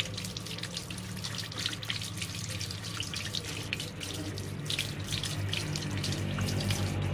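Water running from a tap into a sink, splashing and spattering as hands rub and rinse a white radish under the stream.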